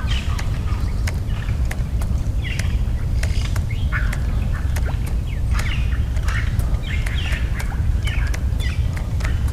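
Birds in the mangrove calling repeatedly, short squawking calls that drop in pitch, about one a second, with scattered sharp ticks, over a steady low rumble.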